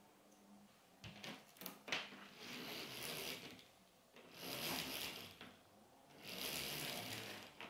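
A fabric roller blind being raised by hand: a few clicks, then three separate rushes of rattling and rubbing as the blind rolls up in stages.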